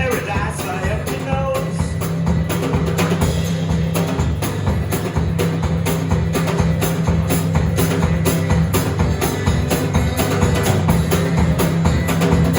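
Instrumental passage of a live acoustic folk/country song: acoustic guitar strumming with a drum kit keeping a steady beat, no singing.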